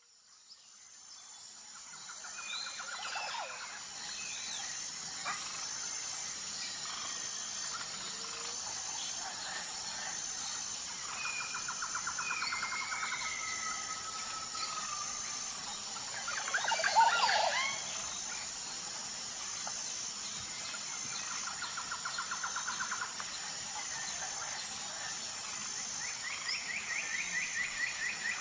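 Nature ambience: birds calling and trilling over a steady, high insect chirring that pulses at an even beat. It fades in at the start, and a louder burst of bird calls comes about two thirds of the way through.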